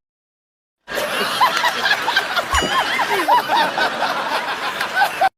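A laughing sound effect: a group of people laughing, many overlapping giggles and chuckles, starting about a second in and cutting off suddenly near the end.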